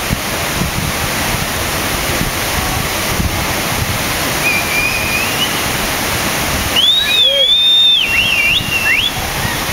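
Waterfall pouring into a plunge pool: a steady, loud rush of falling water. About seven seconds in the rush thins out and loud, shrill whistling with rising and wavering pitches cuts in for a couple of seconds.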